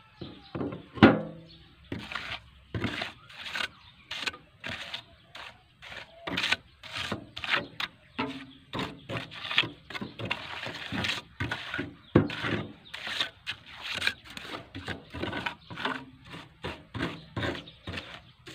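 Hand trowel scraping and smoothing wet cement on a concrete counter top in quick, repeated strokes, about two a second, the loudest about a second in.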